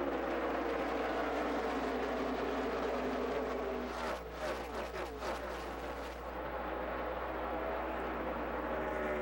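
Pack of NASCAR Cup stock cars with V8 engines running at full throttle, a steady, loud engine drone. About four seconds in, cars pass close by with a quick drop in pitch.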